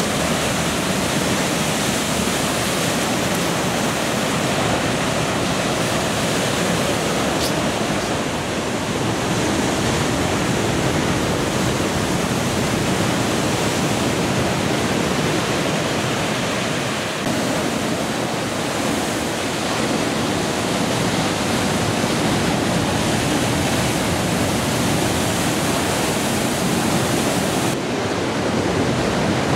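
Heavy storm surf breaking along the shore: a steady, unbroken rush of noise from many large waves at once.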